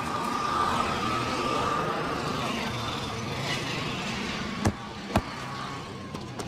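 Steady street traffic noise, with a faint held tone in the first two seconds and two sharp snaps about half a second apart near the end.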